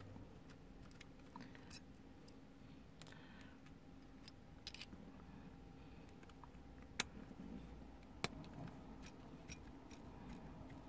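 Light clicks and ticks of small metal parts being handled in the cassette mechanism of an Alpine 5313 tape deck, with two sharper clicks about a second apart past the middle.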